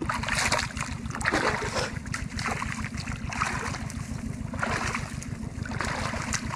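Water splashing and rushing in repeated surges about once a second, over a steady low rumble.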